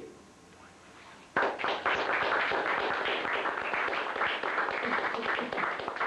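Audience applauding, starting suddenly about a second and a half in and continuing at an even level.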